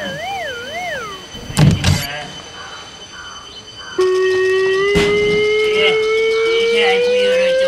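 Comic sound effects: a wobbling whistle tone that slides down in pitch, a couple of thuds near two seconds in, then from about four seconds a long tone that slowly rises in pitch, like a siren winding up.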